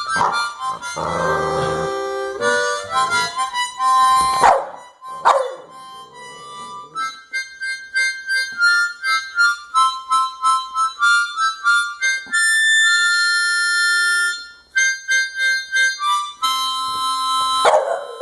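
A harmonica playing a run of short notes while a dog howls and whines along to it, with sharp falling howls about four and five seconds in and again near the end.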